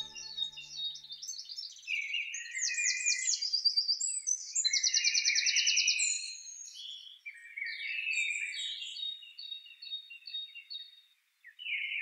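Several songbirds singing: quick high chirps, downward-sweeping whistles, a fast trill and a run of evenly repeated notes, with a brief pause near the end. The last note of the music dies away about a second in.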